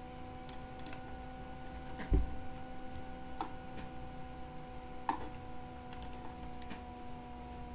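A handful of sharp computer mouse clicks over a steady electrical hum, with one louder click and thump about two seconds in.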